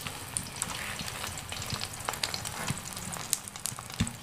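Egg omelette with chopped spring onion sizzling in oil in a small frying pan, with a steady hiss and scattered crackling pops.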